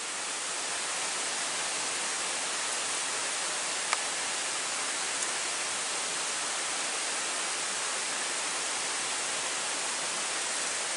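Steady rush of flowing water, even and unbroken, with a single sharp click about four seconds in.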